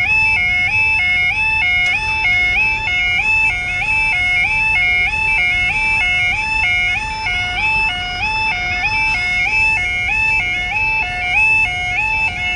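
Railway level crossing warning alarm sounding: a two-tone yodel that alternates steadily between a lower and a higher note a little over twice a second, the warning that the crossing is closed for a train.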